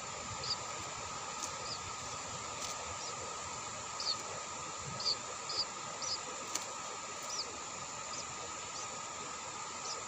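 Steady, even drone of insects, with about a dozen short, high chirps scattered through it.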